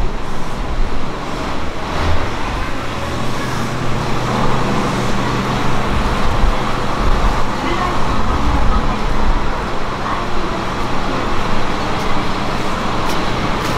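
JR E131-series electric train standing at the platform with its doors open: a steady hum from its onboard equipment over a constant background noise, with occasional low rumbles.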